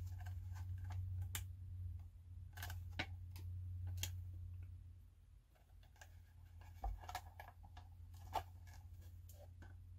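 Faint, scattered clicks and taps of small tools, wires and plastic model parts being handled at a workbench while the model's lights are wired, over a steady low hum.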